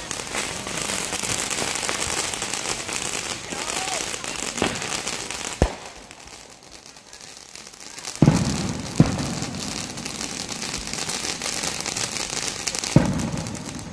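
Fireworks: a ground fountain hisses and crackles, broken by sharp bangs at about four and a half, five and a half, eight, nine and thirteen seconds in. The hiss dies down for a couple of seconds around the middle and comes back with the loud bang about eight seconds in.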